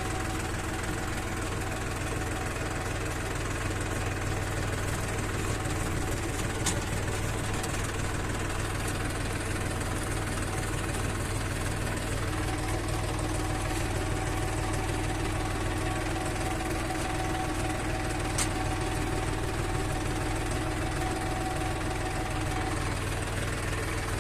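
Farmtrac Champion XP 37 tractor's diesel engine running steadily, its pitch stepping up slightly about halfway through, with a couple of brief sharp clicks.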